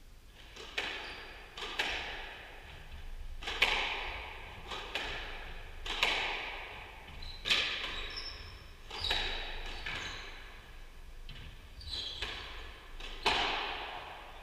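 Squash rally: the ball struck by racquets and smacking the walls, a sharp echoing crack about every second. A few short high squeaks from court shoes on the wooden floor.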